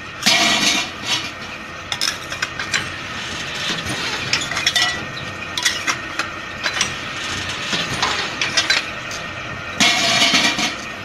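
Metal clanking and scraping from a steel wheel-and-lever bending jig as a metal strip is bent around the wheel, over a steady machine hum. Louder harsh clatter comes just after the start and again near the end.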